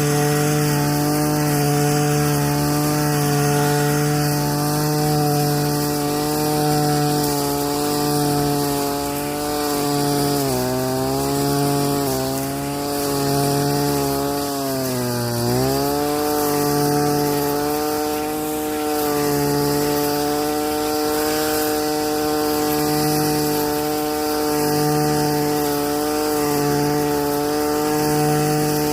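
Weed whacker engine running at steady high speed. Its pitch dips briefly twice, about ten and fifteen seconds in, then recovers.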